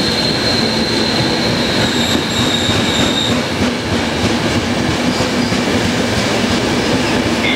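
Frecciabianca passenger train's coaches rolling past along the platform, wheels rumbling on the rails. A high, steady wheel squeal fades out a little over three seconds in.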